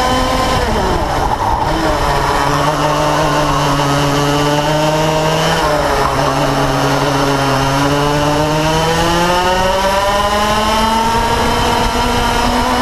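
Onboard sound of a Yamaha KT100 two-stroke kart engine racing: its pitch drops over the first couple of seconds as the kart slows into a corner, stays low through the turn, then climbs steadily from about eight seconds in as it accelerates out.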